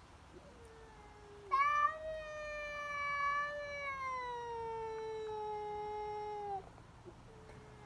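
Two domestic cats moaning at each other in a standoff: a faint low moan, then one long, loud, drawn-out yowl of about five seconds that slowly falls in pitch, and another low yowl beginning near the end. This drawn-out caterwauling is a cat's warning to a rival.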